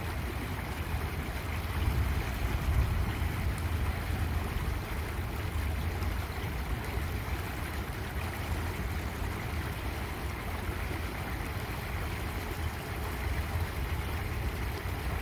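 Steady rush of tidal water churning where it pours through culvert pipes into a marsh channel, over a constant low rumble.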